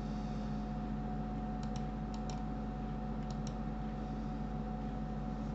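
Three quick pairs of clicks, each a short double tick like a mouse button pressed and released, over a steady electrical hum.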